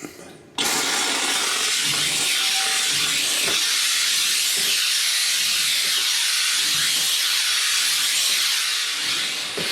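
Kärcher SC3 steam cleaner jetting steam with a steady loud hiss, starting abruptly about half a second in. It tails off near the end as the cleaner runs out of steam.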